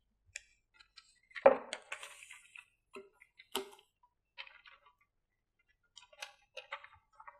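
A long paper strip being unrolled and handled: brief rustles of paper and scattered light clicks and taps, the loudest about a second and a half in and again near the middle.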